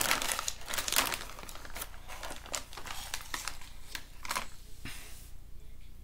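Plastic snack bag of popcorn crinkling as it is handled and reached into: a run of irregular crackles that dies down about four and a half seconds in.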